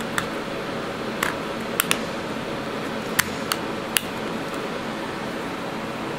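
Sharp plastic clicks and taps from handling a DVD stack-pack case and its discs, about seven in the first four seconds, over a steady background hum.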